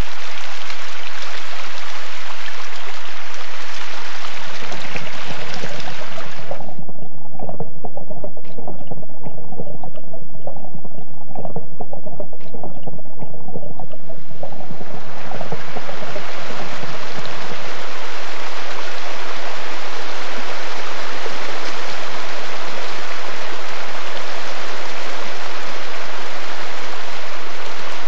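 Fast river water rushing steadily. For several seconds in the middle the sound turns dull and muffled, as heard underwater, with a few faint clicks, then the full rush of the current returns.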